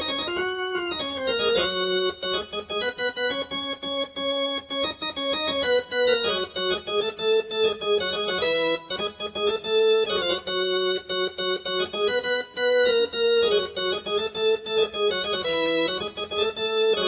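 Casio CTK-2550 portable keyboard played on one of its organ tones: a melody of held, sustained notes over a steady lower note.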